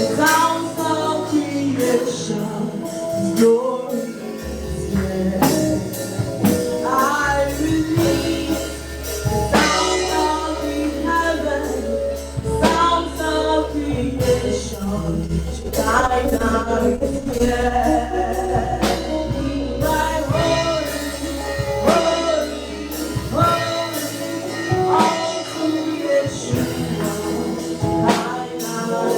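Gospel praise music: a choir and lead singers singing over a band, with a steady drum beat and sustained bass notes.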